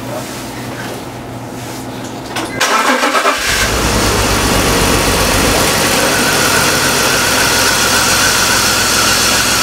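A 2004 BMW 325xi's 2.5-litre inline-six is cranked and starts about two and a half seconds in, with a rough second before it settles into a steady idle. A compression gauge is screwed into one spark plug hole.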